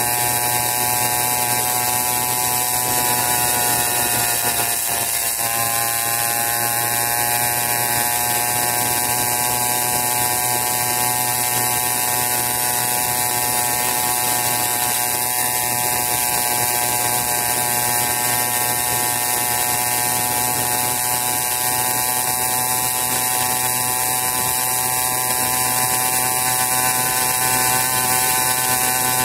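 80cc Wildcat PK80 minibike engine running steadily at cruising speed, a constant buzz with a brief dip in revs about five seconds in.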